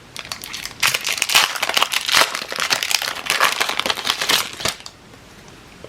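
Foil Pokémon booster pack wrapper being torn open and crinkled: a dense crackling run starting about a second in and stopping shortly before the end.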